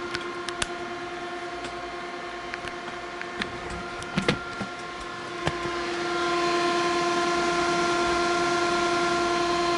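Antec Kühler H2O 920 liquid cooler's stock radiator fans running at full ramp, about 2,300 RPM: a steady rush of air with a clear hum tone, which sounds like a jet engine. It gets louder about six seconds in, and a few light clicks come in the first half.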